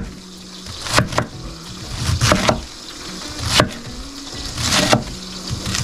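Chef's knife cutting through a head of cabbage and knocking on a wooden cutting board: about six crisp cuts, irregularly spaced, some in quick pairs.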